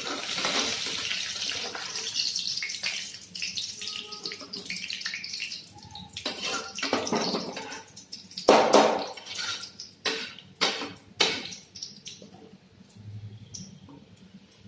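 A metal spatula scraping and scooping fried brown onion slices around a hot iron kadai, with a hiss of hot oil. In the second half come a series of sharp scrapes and knocks of the spatula on the pan and on a steel plate as the onions are lifted out.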